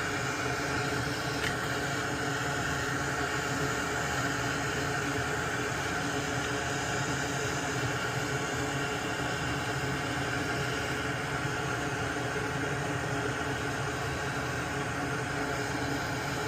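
Small electric fan or blower motor running steadily: an even whir with a faint hum.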